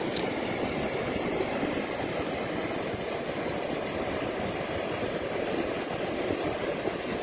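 Ocean surf breaking on the beach: a steady, unbroken wash of noise from the rough sea.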